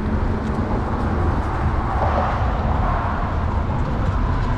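Road traffic on the bridge roadway: cars driving past close by, a steady traffic noise.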